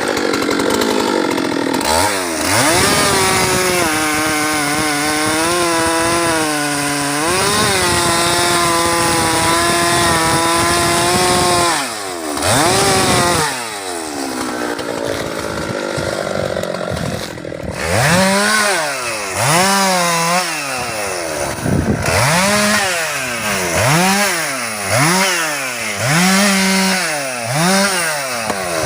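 Husqvarna 390XP two-stroke chainsaw held at high revs for about ten seconds, then revved once and dropped back. In the second half it is revved up and down in quick blips, about one a second.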